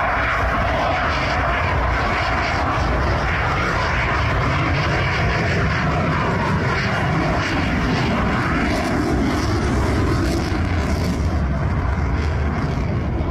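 The twin jet engines of an F/A-18 Super Hornet making a pass overhead: a loud, steady jet engine noise that holds without a break.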